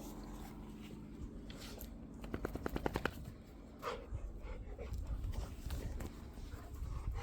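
Rottweiler playing with a rope toy: low rustling and handling noise, with a quick run of short rapid sounds about two and a half seconds in and one brief sound about four seconds in.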